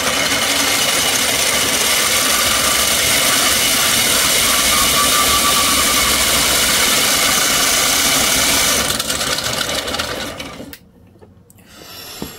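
3D-printed plastic planetary gearbox driven by an electric motor at full power, with its gears meshing at high speed in a loud, steady whirring rattle. About nine seconds in it winds down, and it has stopped by about eleven seconds.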